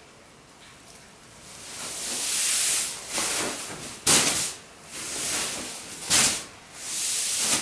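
Sequin fabric being lifted and swung out over the floor: a swishing, hissing rustle of the sequins that builds from about a second and a half in and swells several times, with two sharp snaps of the fabric about four and six seconds in.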